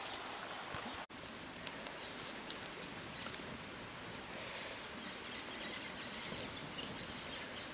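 Steady outdoor background hiss; after a brief dropout about a second in, a low wood fire of glowing embers crackles with scattered small pops, and faint high chirps come and go.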